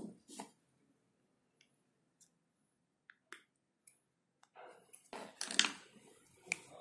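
Handling noise as a hand picks up a small DC hobby motor with a red plastic propeller off a wooden bench: a few faint clicks, then a cluster of scrapes and knocks about five seconds in. The motor is not running.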